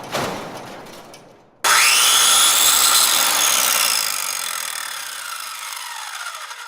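A few knocks fading out, then an electric power tool's motor starts suddenly and winds down slowly, its whine falling in pitch.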